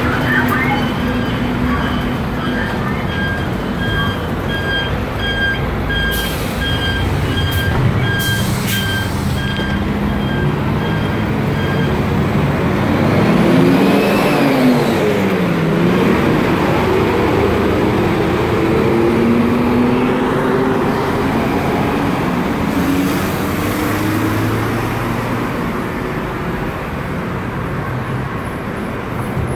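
Busy city street traffic passing close by: a bus, cars and scooters running and pulling away. An engine's pitch rises and falls about halfway through as a vehicle passes, and a high beeping repeats through the first dozen seconds.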